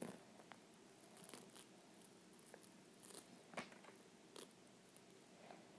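Faint crackling and scattered clicks of plastic burr-ball toy pieces being pressed together and pulled apart in the hands, the loudest crackle about three and a half seconds in.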